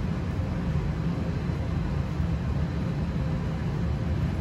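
Steady low background rumble with a faint constant hum, even throughout with no distinct events.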